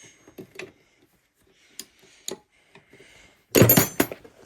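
Light metallic clicks and taps of hand tools working on a partly dismantled dirt bike engine, a few scattered ticks, then a louder clatter of metal on metal about three and a half seconds in.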